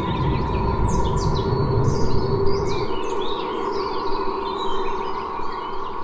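Several songbirds singing in a dawn chorus, many short chirps and whistles overlapping, over a faint steady hum. A low rumble underneath stops about halfway through.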